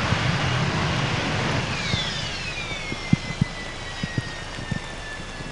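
Harrier GR9A's Rolls-Royce Pegasus vectored-thrust engine roaring as the jet touches down vertically in heavy rain. After about two seconds it throttles back, and the roar eases into a whine that falls steadily in pitch as the engine winds down. A few sharp clicks come about three to five seconds in.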